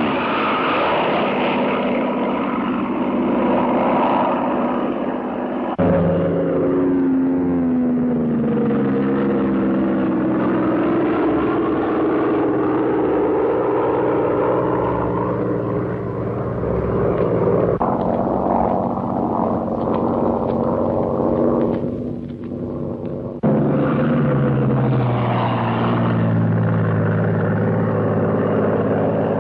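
Propeller fighter's piston engine running at high power in flight, Bell P-39 Airacobra. Its pitch slides downward twice as the plane passes or dives away, and the sound changes abruptly a few times between takes.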